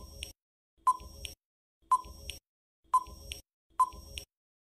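Countdown timer sound effect: short electronic beeps, one a second, five in all, marking the seconds left to answer a quiz question.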